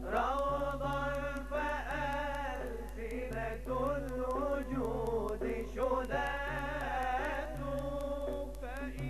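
Male nasheed singers performing an unaccompanied-style muwashshah: a lead voice sings gliding, ornamented melodic lines over a low note that is held again and again.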